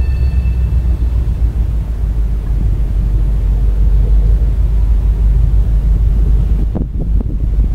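Low rumble of wind buffeting the microphone, mixed with a freight train of autorack cars rolling past at a distance.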